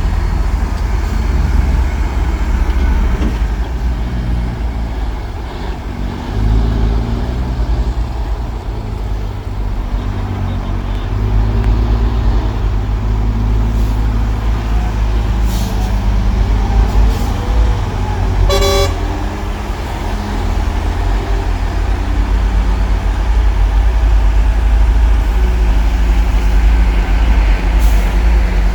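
Heavy diesel earthmoving machinery engine running under load, its pitch rising and falling as it works. A single short horn beep sounds about two-thirds of the way through.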